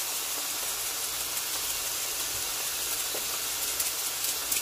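Beef steaks sizzling steadily in a hot frying pan as they sear. Near the end, a few faint crackles and ticks as salt is shaken over the meat.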